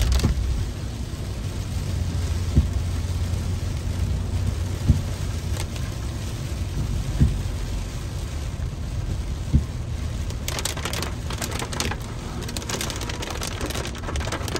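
Heavy rain pattering on a car's windshield and roof over the steady rumble of the car driving on a wet road. A soft knock comes about every two and a half seconds as the wipers sweep, and there is a sharper patter of ticks in the last few seconds.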